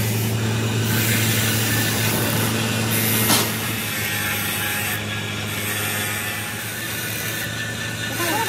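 Tool work on metal in a workshop: a steady rough rubbing noise over a constant low hum, with one sharp click a little over three seconds in.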